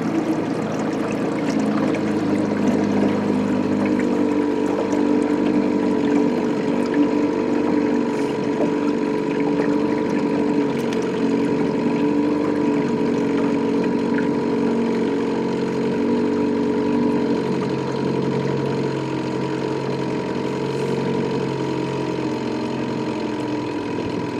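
Small outboard motor running at a steady pace, driving a fishing boat across a lake, with water noise along the hull.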